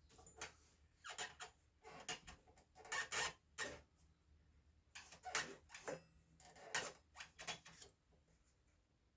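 Irregular light knocks and clicks from handling wood and tools at a miter saw that is not running, coming in small clusters through most of the stretch.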